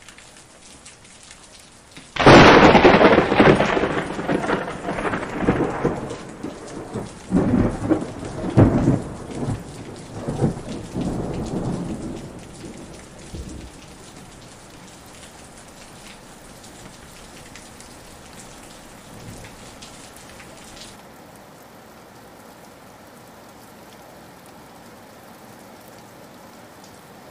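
Heavy rain falling, broken about two seconds in by a sudden loud thunderclap. The thunder rumbles on in several rolls for about ten seconds before dying away under the rain. Near the end the rain's hiss turns duller.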